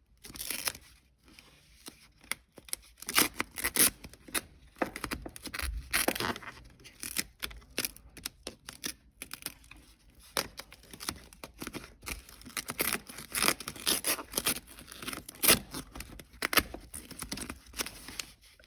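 Adhesive-backed sound-deadening foam being peeled and pressed into place by hand, the sticky backing tearing away with irregular crackles and rustles.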